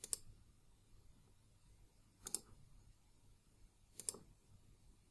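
Three computer mouse button clicks, about two seconds apart, made while a rectangle is placed in a CAD sketch.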